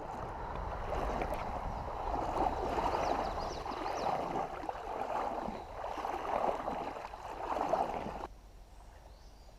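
Creek water running and gurgling over a riffle, a steady rush that swells and eases, then cuts off abruptly about eight seconds in, leaving a faint quiet background.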